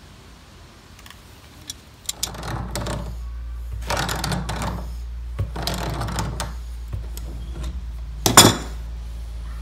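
Tongue-and-groove pliers working a brass fitting off a submersible well pump clamped in a bench vise: three spells of metal scraping and grinding, then a sharp metal clank a little past eight seconds in, the loudest sound. A steady low hum runs underneath from about two seconds in.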